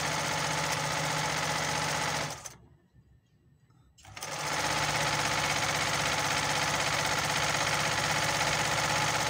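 Olimpia multi-stitch domestic sewing machine stitching fabric at a steady speed. It stops a little over two seconds in, stays quiet for about a second and a half, then starts again and runs on. Its worn upper zigzag parts have a lot of play, yet it runs and stitches well.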